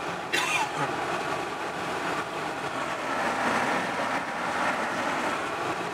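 Steady road and tyre noise of a moving car, heard from inside the cabin.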